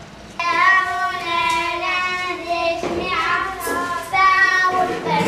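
Children singing the traditional song sung door to door in the days before Eid al-Adha to ask for flour, oil or sugar. Their voices come in suddenly about half a second in with long held, gliding notes.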